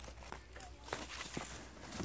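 Light footsteps and rustling on a leafy forest floor: a few soft, irregular crunches.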